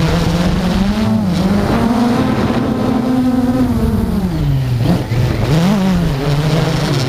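Quadcopter drone's motors and propellers running with a steady buzzing hum whose pitch drifts up and down as the motor speed changes, with a brief drop and rise about five seconds in.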